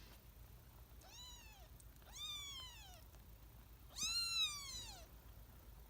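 Two-week-old kitten mewing three times, high-pitched calls that rise and then fall in pitch, the third the loudest and longest.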